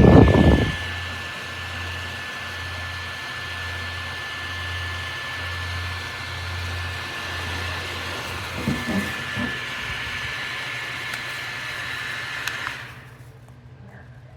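Portable neck fan running with a steady whir and a thin high whine. It follows a brief, loud, low rumble at the start, and the fan stops about 13 seconds in.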